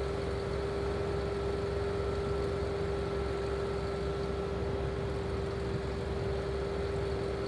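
Bucket truck engine idling with a steady droning tone over a low rumble.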